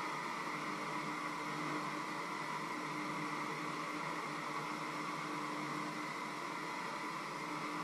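Electric hand mixer running steadily in a bowl: an even motor whir with a steady hum.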